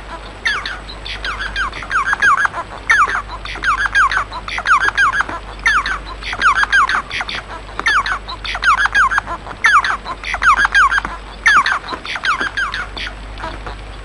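Bengalese finch (society finch) singing: short phrases of quick, falling notes, repeated about once a second. The song stops about a second before the end.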